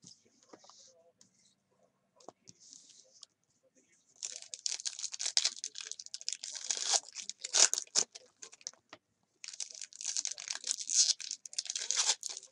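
Crinkly plastic wrapping from trading-card packs being torn open and crumpled, in two long stretches of dense crackling. The first starts about four seconds in, and the second follows half a second after the first ends.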